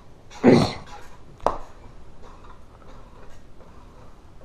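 Ceiling fan with a loose blade turning unevenly: a loud scrape about half a second in and a sharp click a second later, then faint ticking. It is the sound of a blade grinding against another part of the fan, which the owner puts down to the loose blade.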